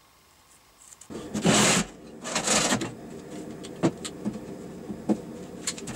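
Rummaging through a wooden box of metal parts and lifting out a car windshield wiper motor with its metal linkage: loud scraping and clattering bursts and sharp knocks, starting about a second in, over a steady low hum.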